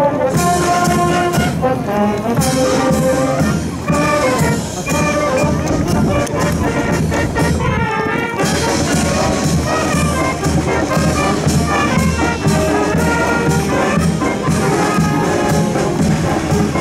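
A marching band playing: trumpets, trombones, saxophones and a sousaphone carrying the tune over snare and bass drums.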